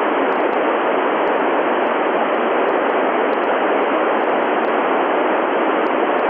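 Steady hiss of an FM radio receiver on the 145.800 MHz ISS downlink with no usable signal coming in: open-squelch noise in the gap between transmissions, cut off above the radio's narrow audio range.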